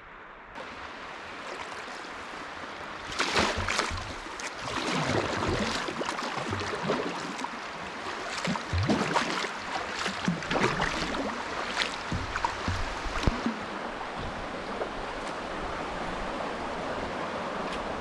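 Kayak paddle strokes splashing in moving river water, with irregular splashes for several seconds and then a steadier rush of water.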